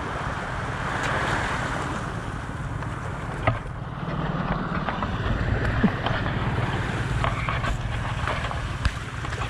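Wind rumbling on the microphone over small sea waves washing against a sloped concrete seawall, with three sharp knocks spread through.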